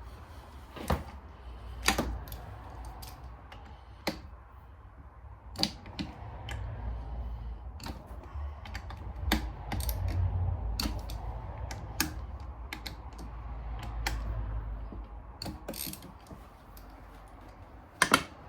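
Scattered metallic clicks and taps of hand tools working bolts loose on the engine's clutch side, at irregular intervals over a low handling rumble.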